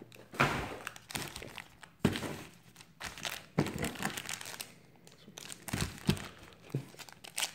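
Foil wrappers of football trading card packs crinkling as hands press, shift and sort a stack of packs, in a string of short, irregular crackly bursts.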